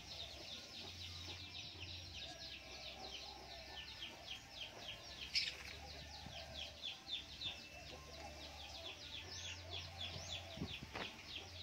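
Small birds chirping: a steady run of short, high, falling chirps, several a second, with hens clucking faintly lower down.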